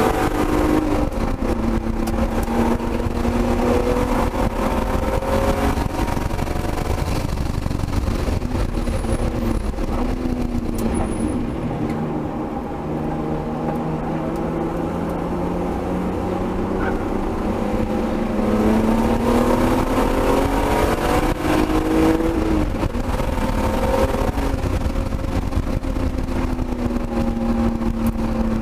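Turbocharged BMW M3's straight-six engine, heard from inside the cabin, working hard on track. The pitch climbs and drops with the gear changes. It falls to its lowest about twelve seconds in, then rises steadily in one long pull for about ten seconds, drops, and climbs again near the end.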